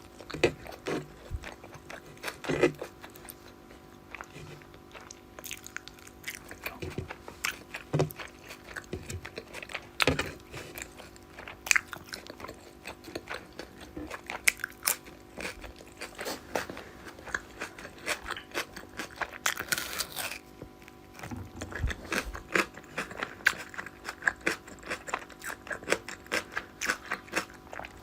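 Close-up mouth sounds of a person eating fish curry with rice: chewing and biting, with many short wet clicks and smacks throughout.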